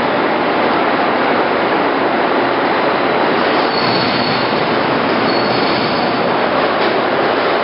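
POREBA TCG 125 heavy-duty lathe running, a loud, steady mechanical noise, with a faint high squeal coming in twice midway through.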